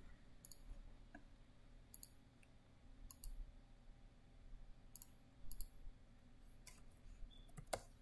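Faint computer mouse clicks, several sharp clicks spread out, some in quick pairs.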